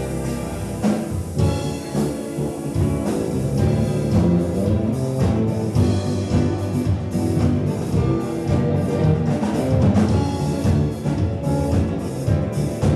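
Music with drums and percussion under pitched instruments, playing steadily throughout.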